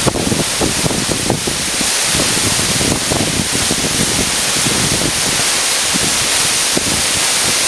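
Waterfall pouring into its plunge pool: a loud, steady rush of water with irregular splashing throughout.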